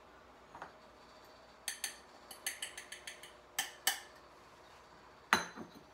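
A bowl of ground coffee being tipped and tapped out into a cheesecloth-lined bowl: a string of light clinks and taps about two to four seconds in, then one louder knock near the end.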